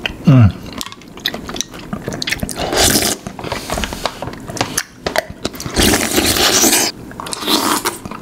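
Slurping and chewing of konjac jelly pieces in a milky fruit cocktail eaten off spoons, opening with one short, loud slurp that falls in pitch, then several longer slurps. Spoons scrape against the glass bowl.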